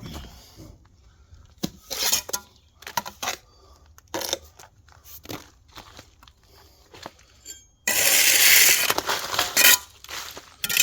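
Steel brick trowel working sand-and-cement mortar onto concrete blockwork: short scrapes and clinks of the blade, then a loud scrape lasting about two seconds, about eight seconds in.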